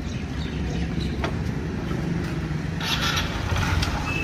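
Hero Passion X Pro motorcycle's single-cylinder four-stroke engine, freshly rebuilt, idling steadily as the rider prepares to move off. A brief hiss comes about three seconds in.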